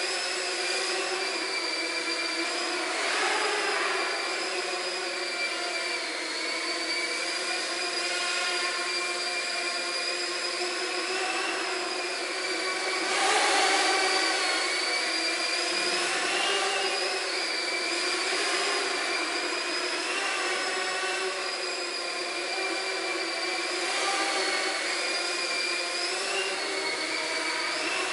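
Small quadcopter drone's electric motors and propellers whining in flight, the pitch wavering up and down with the throttle. It grows louder for a moment about thirteen seconds in.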